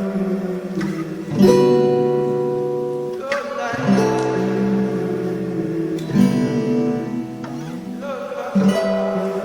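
Music: acoustic guitar strumming chords, a new chord struck every second or two and left to ring.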